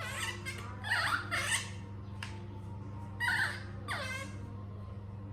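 Baby monkey squealing: about five short, high-pitched squeals, each sweeping down in pitch, over a steady low hum.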